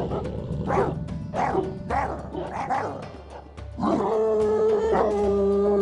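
Dogs barking several times in quick succession, then about four seconds in one dog lets out a long howl held at a steady pitch, over background music.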